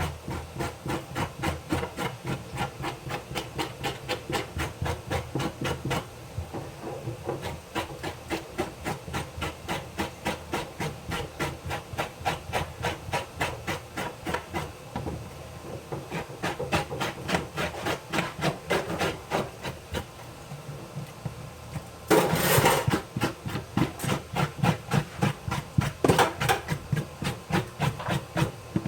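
Steady, rapid striking, about two to three strokes a second, that goes on without a break, with a short, louder noisy burst about two-thirds of the way through.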